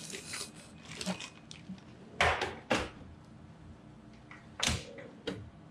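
Drawers of a medical supply cart being slid shut and pulled open: two short sliding noises close together about two seconds in and a sharper knock near the end, with a few fainter handling clicks.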